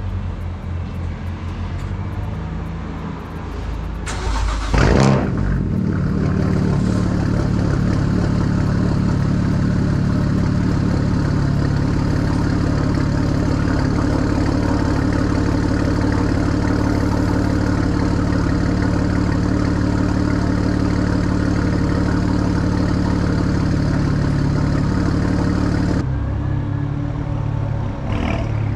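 BMW 335is twin-turbo straight-six (N54) through a full straight-pipe exhaust with no cats, resonator or muffler: a quick rising rev about five seconds in, then the engine running loud and steady, with a change in its note a couple of seconds before the end.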